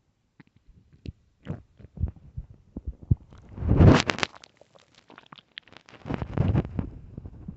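An empty, hungry stomach growling and gurgling. Scattered small pops and gurgles come first, then a loud rumbling gurgle about halfway through, and another stretch of rumbling near the end.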